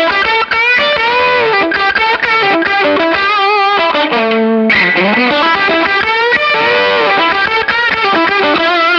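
Electric guitar lead solo through a KingTone MiniFuzz v2 fuzz pedal in its silicon setting: sustained fuzzed notes with string bends and vibrato. The tone is mid-heavy and strongly compressed.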